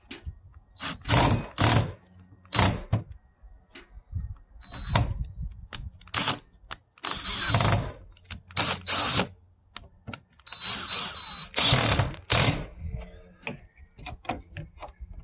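A screw being driven into an RV door lock in a series of short mechanical bursts with ratcheting, stopping and starting about a dozen times. The screw is stripping out its hole instead of grabbing.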